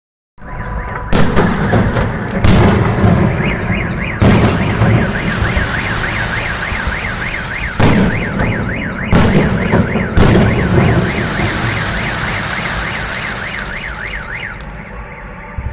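Fireworks going off with six loud bangs over about ten seconds. A car alarm starts a few seconds in, warbling up and down quickly, and cuts out near the end.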